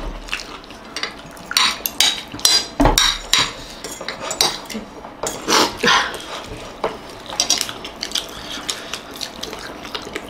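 Metal spoon and fork clinking and scraping against ceramic plates in quick, irregular clicks, mixed with the wet mouth sounds of people eating biryani.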